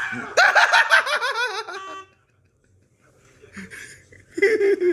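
A high, fast cackling laugh that falls in pitch over about a second and a half, typical of a Halloween decoration that cackles when set off. A shorter, lower voice-like cry follows near the end.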